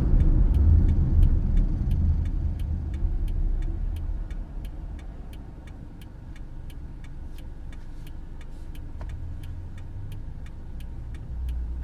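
Toyota Passo (QNC10) running: a low rumble that fades over the first few seconds as the car slows, then a quieter steady low hum, with light ticks about three a second throughout. The owner is recording it for a rattling, booming abnormal noise.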